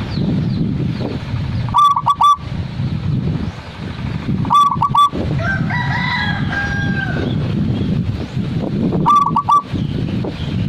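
Caged zebra dove (perkutut) cooing: three short phrases of three or four quick, clipped notes, a few seconds apart. A longer, drawn-out rooster crow sounds between the second and third phrase, over a steady low rumble.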